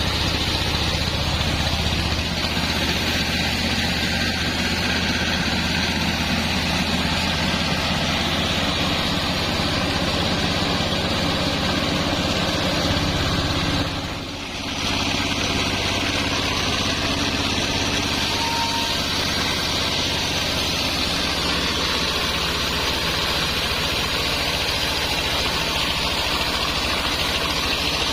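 Band sawmill running steadily: a low hum under a broad hiss, with a brief dip in level about halfway through.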